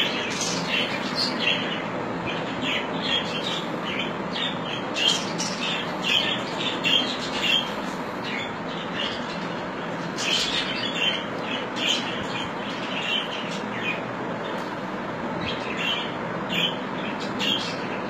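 Small cage birds chirping in quick, short calls, several a second, over a steady background hiss.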